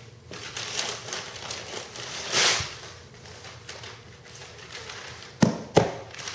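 A cardboard gift box being handled: rustling and light tapping, with a louder scraping rustle a couple of seconds in and two sharp knocks close together near the end.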